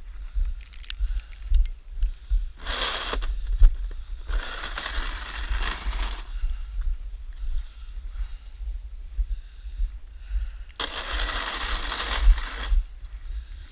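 A snow shovel scraping and pushing through snow in three stretches, the longest about two seconds, over a steady low rumble.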